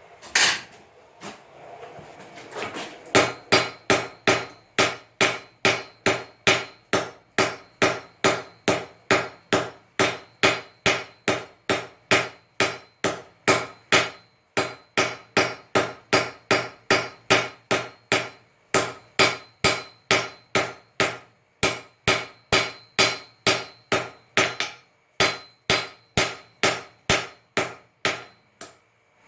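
Blacksmith's hammer striking iron on an anvil while forging a pintle: a few separate blows, then a steady run of ringing strikes at about two to three a second, broken by a few short pauses.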